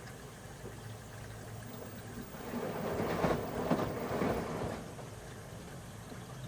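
Washing machine running: a steady low hum, with a swell of water sloshing and rumbling in the drum from about two and a half seconds in, dying down by about five seconds.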